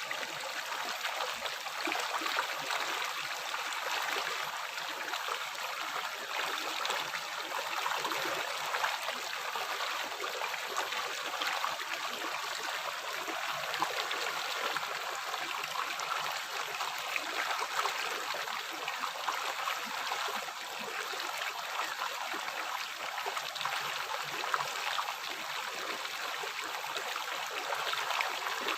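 River water flowing steadily over rocks, a continuous splashing and gurgling rush with no pauses.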